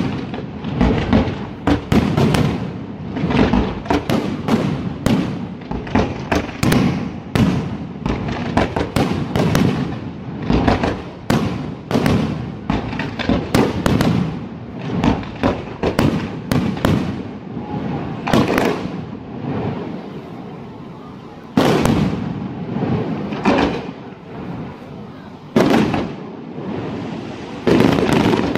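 Aerial firework shells bursting in a rapid barrage, several sharp bangs a second for the first two-thirds, then thinning out, with two louder single bangs in the later part.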